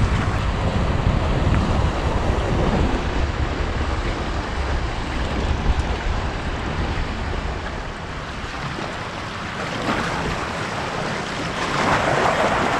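Strong wind buffeting the microphone over waves washing against the jetty, a dense rumbling noise that eases briefly about two-thirds of the way through.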